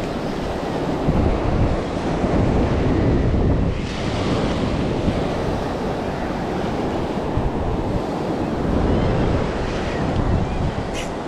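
Ocean surf breaking and washing over a rocky shore, a steady rushing noise that swells and eases, with wind buffeting the microphone.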